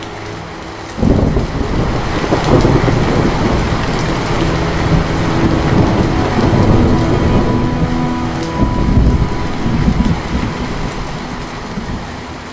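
Steady rain with a long roll of thunder that breaks in suddenly about a second in, rumbling low for around ten seconds and easing off near the end.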